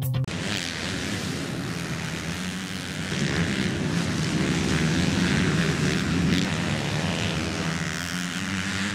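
Motocross dirt bike engines running hard on a track, their pitch wavering as riders work the throttle, growing louder about three seconds in.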